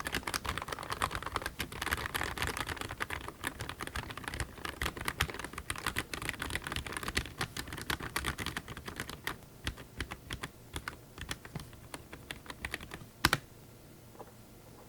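Eweadn MK100 mechanical keyboard with white switches being typed on: a fast, dense run of key clicks that thins to scattered keystrokes after about nine seconds, then one loud clack and the typing stops.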